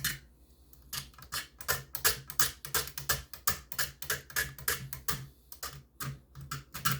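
Knife edge scraped along the edge of a styrene plastic piece like a plane: quick, short scraping strokes, about three or four a second, starting about a second in.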